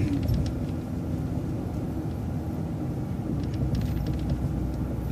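City transit bus running, a steady low engine and road rumble heard from inside, with a few faint light clicks.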